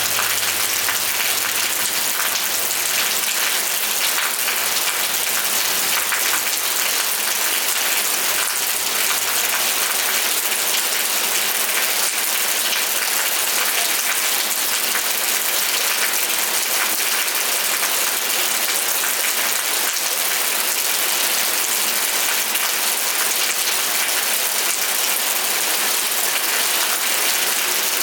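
Steady rainfall, a dense even patter of drops without let-up.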